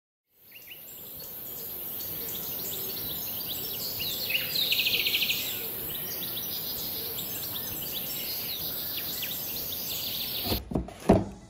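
Outdoor birdsong ambience: many birds chirping and whistling over a steady high hiss, with a fast buzzing trill about five seconds in. It fades in at the start, cuts off shortly before the end, and is followed by a couple of sharp thumps.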